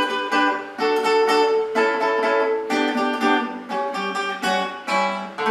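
Acoustic guitar playing a whole melodic phrase: a run of plucked notes, a few per second, each left ringing into the next.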